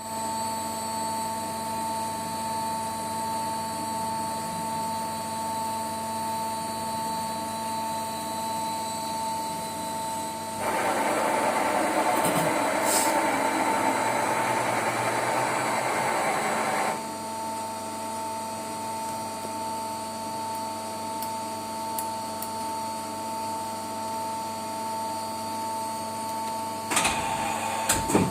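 Colchester 2000 CNC lathe running with a steady whine and hum. About a third of the way in, a louder hissing rush joins for about six seconds. A few sharp clicks come near the end.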